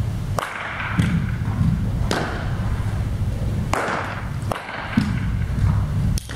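Sharp knocks of a baseball being hit and smacking into leather gloves during infield ground-ball practice, about seven at irregular intervals. A steady low rumble of a large indoor hall lies under them.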